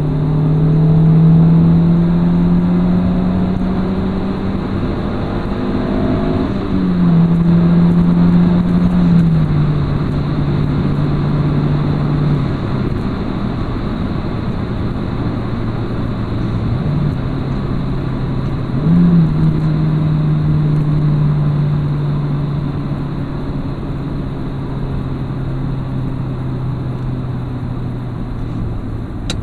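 Renault Clio III GT 1.6 16-valve four-cylinder with a Supersprint centre pipe and rear exhaust, heard from inside the cabin while driving at about four to five thousand rpm. The engine note climbs slowly at first, rises sharply about seven seconds in, falls back in steps by about twelve seconds, rises briefly again near nineteen seconds, then slowly eases off.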